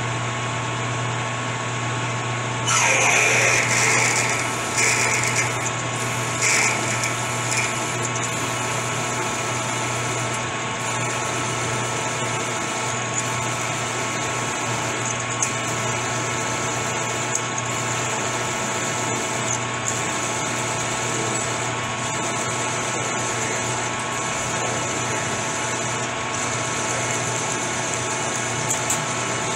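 Metal lathe running steadily with a twist drill in the tailstock chuck cutting into the breech of a spinning rifle barrel, pre-drilling the chamber ahead of boring and reaming. A louder cutting noise lasts about a second and a half from about three seconds in. Shorter bursts follow a second or so apart as the drill bites, and then the lathe's steady running with many tones carries on.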